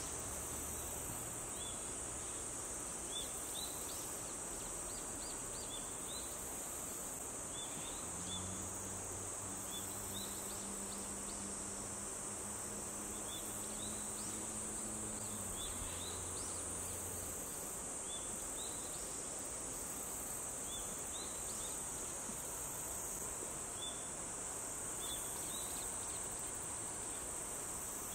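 Steady high-pitched chorus of insects with a pulsing buzz above it and short chirps scattered throughout. A low drone comes in about eight seconds in and dies away by about seventeen seconds.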